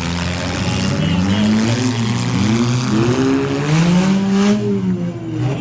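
Several demolition derby car engines revving up and down at once, their pitches rising and falling and overlapping, over a constant rushing noise.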